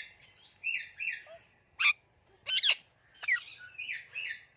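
Pet parrot chirping: a run of short chirps and whistles with brief gaps between them, and two sharper, louder whistles around two and two-and-a-half seconds in.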